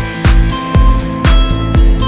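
Upbeat background music with a steady beat, a strong drum hit about every half second under held synth or instrument notes.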